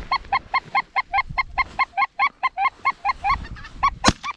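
Geese honking in a fast, even string of short calls, about five a second. A single sharp shotgun report cuts in near the end.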